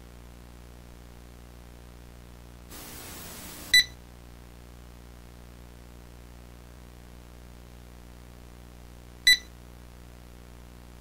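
Steady low electronic hum, broken about three seconds in by a second-long burst of static that ends in a short, sharp high beep; a second identical beep comes about nine seconds in.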